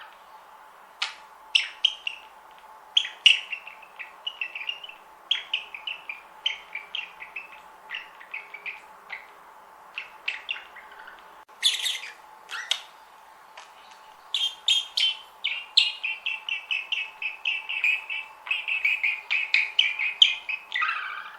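Budgerigars chirping: scattered short chirps, then a dense run of warbling chatter from about two-thirds of the way through.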